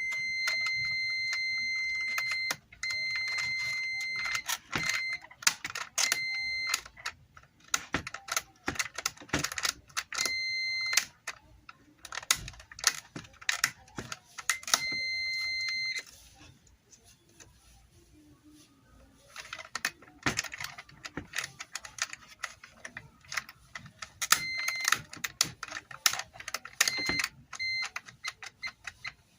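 Multimeter continuity beeper sounding as one steady high-pitched tone, held for a couple of seconds at first and then switching on and off in shorter beeps, each beep meaning the circuit through the blender's push-button switches is closed. Sharp clicking of the buttons being pressed runs throughout.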